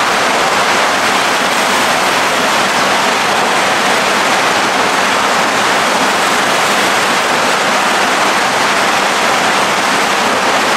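Steady rushing and splashing of water in an indoor koi pond, from the inflow and aeration welling up at the surface, with a faint steady hum underneath.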